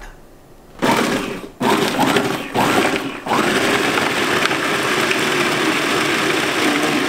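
Countertop food processor motor run in three short pulses, then held on steadily, its blade chopping basil, garlic and oil into pesto.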